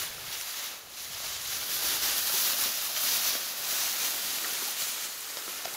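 Dry tall grass rustling as a person wades through it on foot, with a brief lull about a second in.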